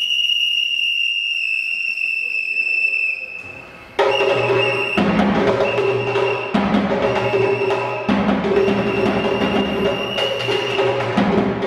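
A high, steady whistle-like tone held for about three seconds. About four seconds in, loud drumming begins: a bass drum and a tom beaten with sticks, with short high tones repeating over the beat.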